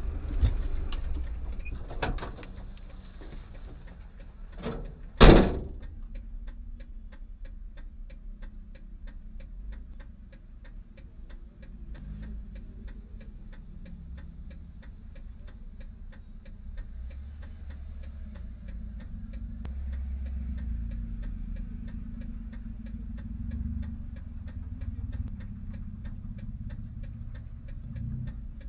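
Car interior with a single loud impact thump about five seconds in, the loudest sound, typical of a low-speed collision. After it comes the steady rapid ticking of the car's turn-signal or hazard-light relay over a low engine idle.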